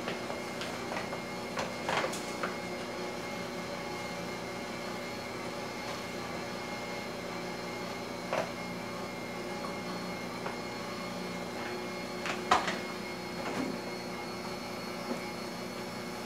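Electric stand mixer running steadily while mashing boiled potatoes, a constant motor hum, with a few sharp knocks of utensils against the bowl.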